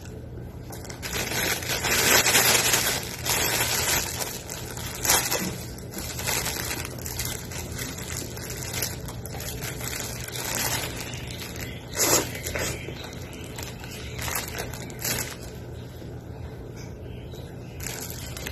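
Thin plastic food bag crinkling and rustling as it is handled, in irregular bursts, the longest about one to four seconds in. A steady low hum runs underneath.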